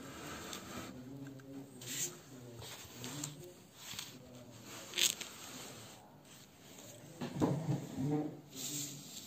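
Clicks and light rubbing from hands handling a car radio's sheet-metal chassis, with a few sharp clicks, the loudest about five seconds in. A faint vocal sound in the background is strongest near the end.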